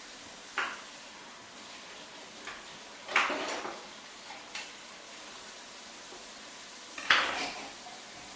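Kitchen utensils and cookware clattering: about five sharp clinks, the loudest about three seconds in and again near the end, each ringing briefly.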